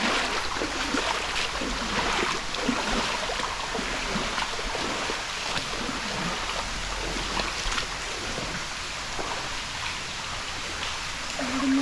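Rushing water of a stream or waterfall flowing over rocks, a steady hiss.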